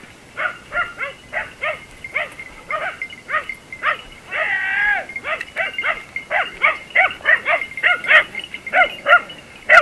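Hunting dachshunds baying while hunting a wild boar: repeated short barks, two or three a second, with one longer drawn-out howl about halfway through.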